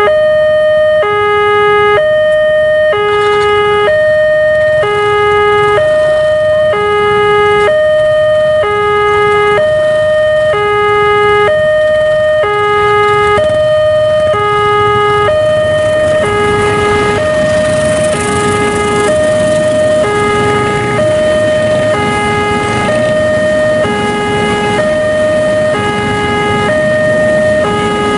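Railway level-crossing warning alarm sounding an electronic two-tone signal, a higher and a lower tone alternating about once a second, warning of an approaching train. From about halfway through, the rumble of a passing container freight train rises beneath it.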